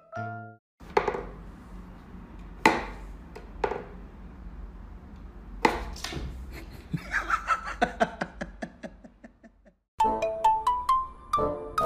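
Wooden whack-a-mole cat toy: a few sharp wooden knocks a second or more apart as pegs pop up and are struck, then a quick run of clicking taps. Bright mallet-percussion music comes in near the end.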